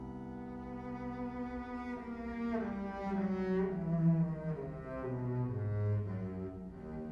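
Cello bowed in classical chamber music with grand piano; the cello line steps downward through several notes to a low held note near the end.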